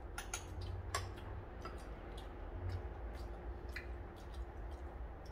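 Quiet eating at a table: light, irregular clicks of metal chopsticks and spoons against bowls and dishes, over a faint steady hum.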